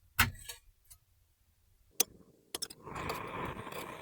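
A metal garlic press being handled and squeezed over a pan: a few sharp clicks, then from about three seconds in a steady rasping noise.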